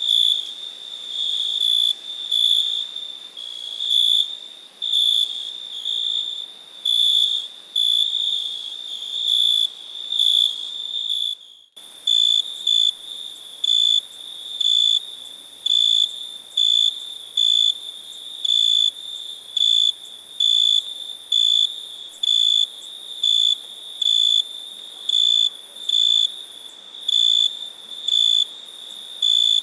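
Crickets chirping: a single high-pitched trill repeating in short chirps, irregular at first, then evenly spaced after a brief break about twelve seconds in.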